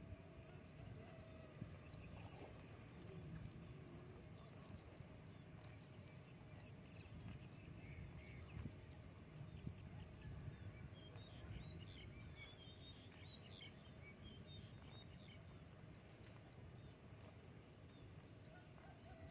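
A cow cropping and chewing grass, heard faintly as many small crisp tearing clicks. A steady high thin whine runs underneath, and a few short chirping calls come around the middle.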